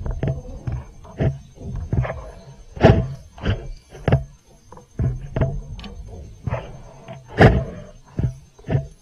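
Small waves slapping and knocking against a kayak's hull, irregular thuds and splashes one or two a second, the two loudest about 3 seconds and 7.5 seconds in.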